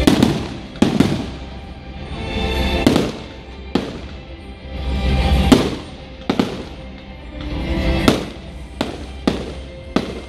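Fireworks display going off: about ten sharp bangs at irregular gaps of roughly a second, over loud music.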